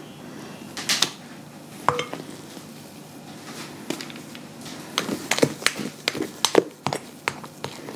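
A spatula scooping whipped egg-white cake batter from a glass mixing bowl into a parchment-lined pan, with scattered clicks and taps of the spatula against the bowl and pan, most of them in the second half.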